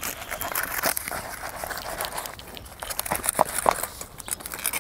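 A knife carving a whole roasted suckling pig on a wooden cutting board: the crisp skin crackles and crunches as it is cut, with scattered clicks and knocks. Two short, sharp sounds come a little over three seconds in.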